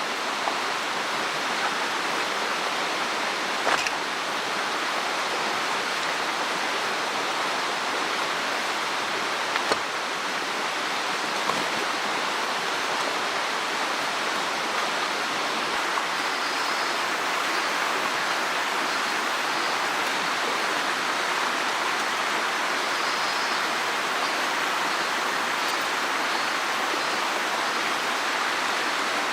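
Mountain stream water rushing in a steady, even wash, with a couple of brief faint clicks about 4 and 10 seconds in.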